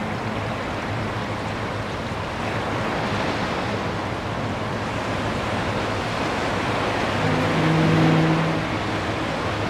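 Surf washing steadily onto a sandy beach, with a foghorn sounding one low note for about a second and a half near the end.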